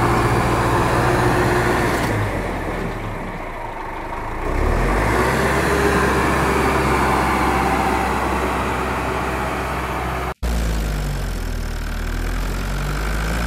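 Small electric motor of a homemade toy tractor running steadily. Its sound sags about two seconds in and comes back with a rising pitch a couple of seconds later. There is a brief break near the end of the tenth second.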